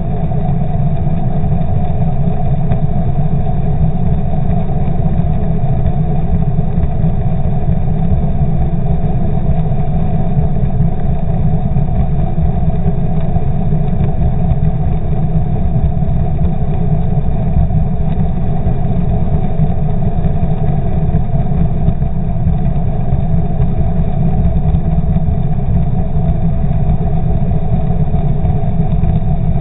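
Outboard motor running with its propeller turning, heard underwater: a steady low rumble that does not change.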